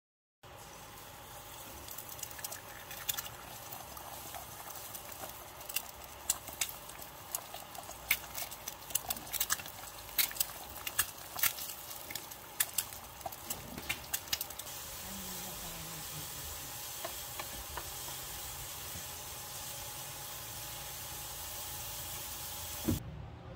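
Food frying in hot oil in a pan: an egg, then corned beef with onions. A steady sizzle with many sharp crackles and pops during roughly the first 15 seconds, then a smoother, even sizzle.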